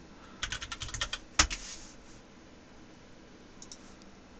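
Typing on a computer keyboard: a quick run of keystrokes ending in one harder key press about one and a half seconds in, then two faint clicks near the end.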